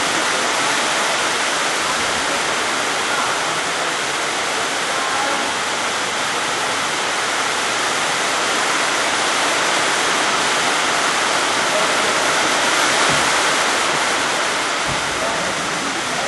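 A steady, even hiss with no distinct knocks or calls, fairly loud and unchanging throughout.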